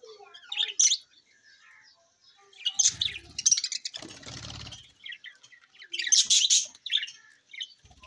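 Several budgerigars chirping and chattering in loud, quick bursts of sharp high chirps. Wings flap as one flies up, about three and again about four seconds in.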